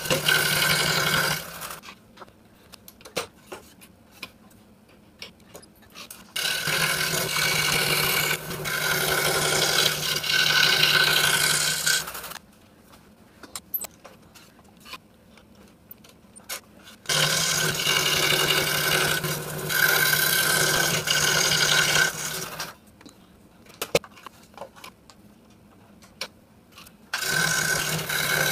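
A 26-inch RBI Hawk scroll saw with a 5-0 skip-tooth blade running and cutting Baltic birch plywood, with a steady hum. It stops and restarts three times, running for about five seconds at a stretch. Faint clicks and taps fill the quiet pauses.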